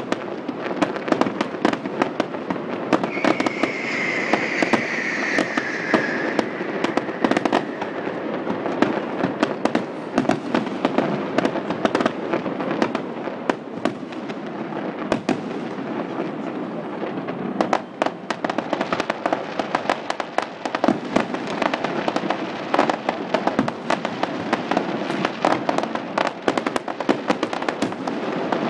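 Fireworks display: a dense, continuous run of bangs and crackling bursts, with a slowly falling whistle about three seconds in.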